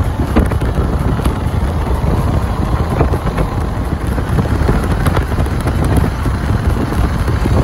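Road and wind noise from a moving car: a steady low rumble with faint scattered clicks.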